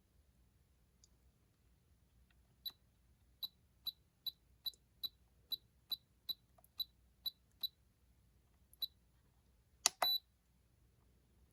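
Spektrum DX6i transmitter beeping as its roller switch is scrolled through the menu: a dozen or so short, high beeps, about two a second. Near the end comes a louder click with a longer beep as the roller is pressed to select.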